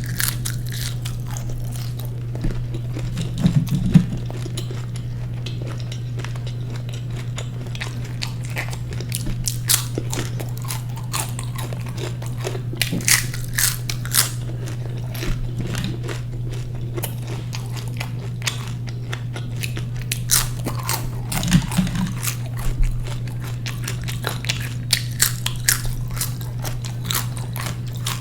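Close-miked eating: a person chewing and biting food, with repeated crisp crunchy bites and mouth clicks. A steady low hum runs underneath.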